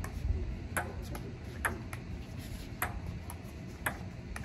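Table tennis rally: the plastic ball clicks sharply off the paddles and table in an irregular run of single ticks, about one every half second to a second, over a steady low rumble.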